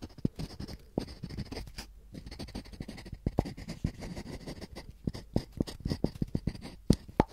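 A wooden stick scratching and tapping against a turned wooden bowl close to the microphones: a steady run of small dry clicks and rasps.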